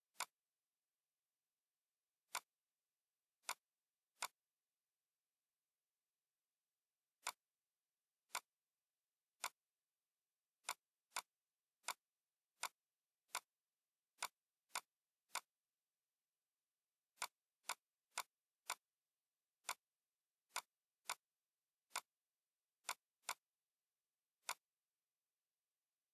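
Computer mouse clicks: about two dozen single sharp clicks at irregular intervals, some in quick pairs, with silence between them.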